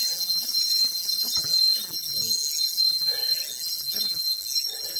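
Spinning reel's drag buzzing steadily as a hooked fish pulls line off against it, with the drag left loose.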